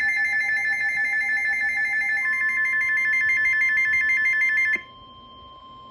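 Emergency Alert System alert: the harsh, fast-warbling data screech of the SAME header, loud, with a steady alert tone joining about two seconds in. The data screech cuts off suddenly near the end, leaving the steady weather-radio alert tone sounding more quietly. It is the signal that announces a National Weather Service severe thunderstorm warning.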